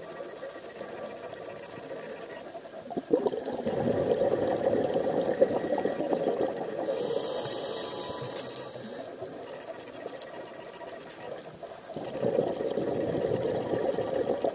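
Scuba diver's regulator breathing heard underwater: a rush of exhaled bubbles that starts about three seconds in and again near the end, with a short high hiss of the regulator in between.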